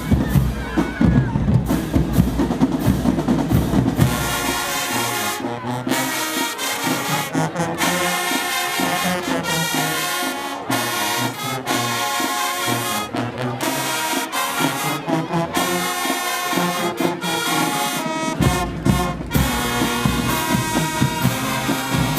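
High school alumni marching band playing, its brass section (trombones and trumpets) carrying the tune. The low end drops away after about four seconds, leaving the horns on their own, and comes back in heavily near the end.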